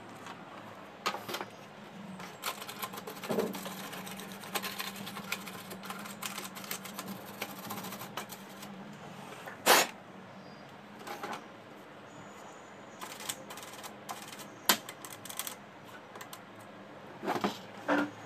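Irregular clicks, taps and scraping of a metal tool working against the plastic and metal parts inside an opened HP LaserJet M1005 laser printer while it is cleaned, with a few sharper knocks, the loudest about ten seconds in and two more near the end.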